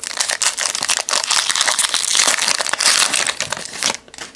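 Wrapper of a 2017 Topps Fire baseball card pack being torn open and crinkled in the hands: a dense, crackling rustle that stops about four seconds in.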